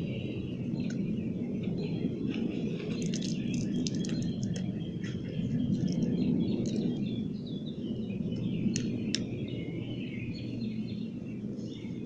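Small birds chirping and twittering over a steady low rumble, with a few sharp clicks about three seconds in and twice near nine seconds.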